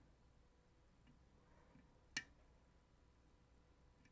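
A single sharp click from the DOM RS Sigma lock being picked, about two seconds in, against near silence with a few faint ticks.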